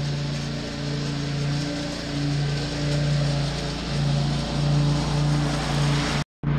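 Riding lawn mower engine running steadily as it mows along a fence, with background music laid over it. The sound drops out briefly near the end.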